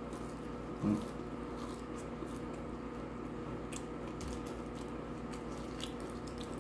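A person chewing french fries with the mouth, with a few faint soft clicks, over a steady low hum in the room. There is a short low murmur about a second in.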